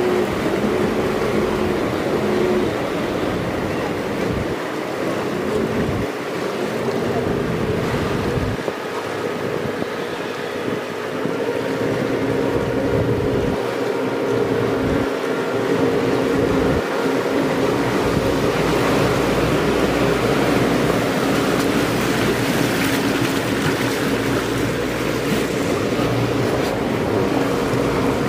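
A motorboat's engine running steadily, with water rushing against the hull and wind on the microphone; the engine note shifts about two-thirds of the way through.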